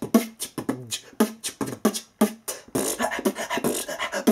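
A man beatboxing: a fast, even run of mouth-made drum hits with low kick-like thumps, growing denser about two and a half seconds in.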